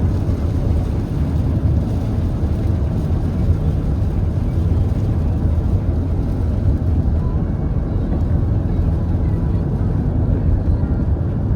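Steady low rumbling noise that holds an even level, with no rhythm and no distinct events.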